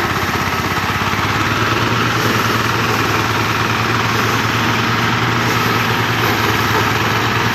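An engine running steadily at a constant speed, with a dense, even firing pulse.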